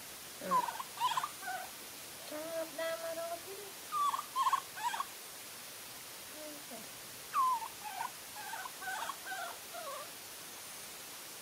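Baby macaque making short, squeaky calls that slide up and down in pitch, in two bouts with a pause of a couple of seconds between them.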